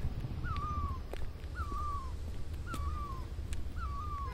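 A bird calling over and over, a short thin note that drops in pitch, repeated about once a second, four times, over a low steady rumble.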